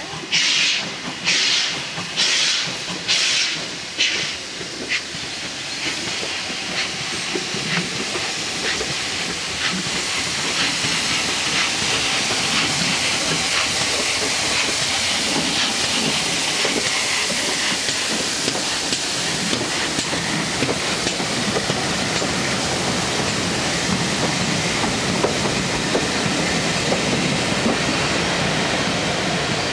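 GWR 2-8-0 steam locomotive No. 2857 working a train: hissing steam chuffs about one a second that fade out over the first five seconds. Then the locomotive and its coaches pass close by with a steady running noise and faint regular clicks from the wheels.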